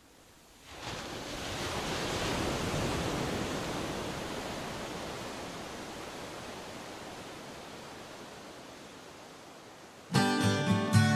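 A rushing, hiss-like swell of noise rises about a second in and slowly fades away. About ten seconds in, strummed acoustic guitar starts the song loudly.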